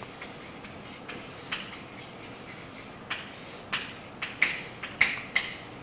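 Chalk writing on a chalkboard: a string of short scratches and taps, getting louder and closer together in the second half.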